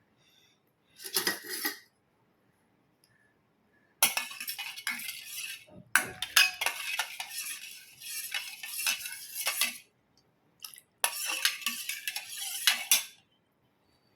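A metal spoon stirring and clinking against a bowl, in three spells: a short one about a second in, a long one of several seconds, and another near the end.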